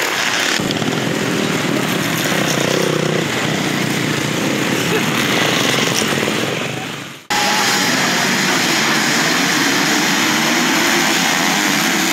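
Several motocross dirt bike engines running and revving hard on the track. About seven seconds in the sound fades out and cuts abruptly to another stretch of engine noise from a pack of bikes.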